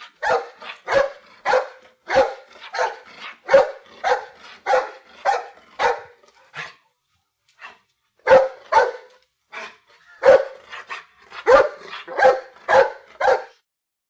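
Dog barking repeatedly in short, sharp barks, about two a second, with a pause of a second or so midway.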